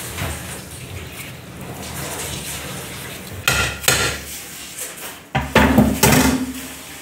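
Heavy steel cleavers and knives clanking against each other and clattering onto the tiled counter and cutting board. There are a couple of ringing clangs about three and a half seconds in, then louder clattering around six seconds.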